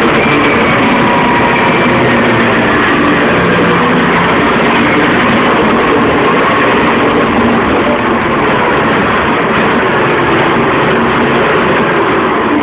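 Bulldozer's diesel engine running loud and steady under load, with the machine's mechanical clatter mixed in; it eases slightly about two-thirds of the way through.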